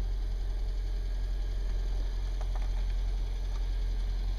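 Toyota Prius Gen II's 1.5-litre four-cylinder engine idling steadily with a low, evenly pulsing rumble, the car in drive with the brake released. A couple of faint clicks come about two and a half seconds in.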